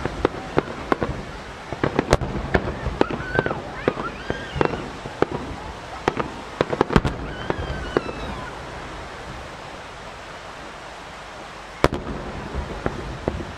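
Grand-finale starmine fireworks bursting in quick succession: many sharp booms and crackles through the first half, thinning to a lull, then one loud bang near the end followed by scattered crackling.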